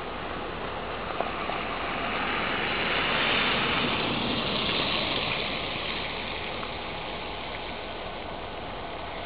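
A vehicle passing on a wet, slushy road: a rush of tyre hiss that swells over a couple of seconds and fades away again, over a steady low hum, with a single small click about a second in.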